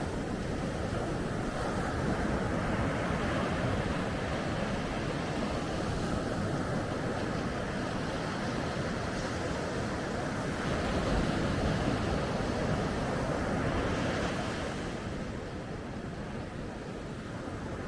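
Ocean waves breaking and washing on a beach, a continuous surf sound that swells and ebbs slowly and eases off about fifteen seconds in. Some wind on the microphone.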